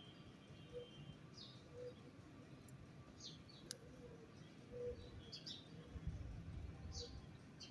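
Birds chirping faintly: short, high, down-slurred chirps a handful of times, with a soft low note repeating about once a second and a single sharp click about midway.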